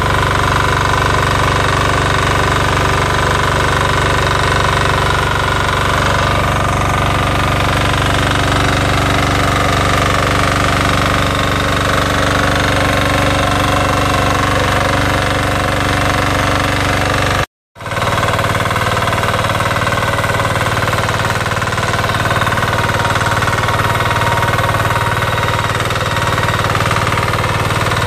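Weima 12 hp single-cylinder air-cooled diesel engine of a BSR 1100 BE walk-behind rotary tiller running steadily while its tines churn the soil. The sound drops out for a split second about two-thirds of the way in, then continues.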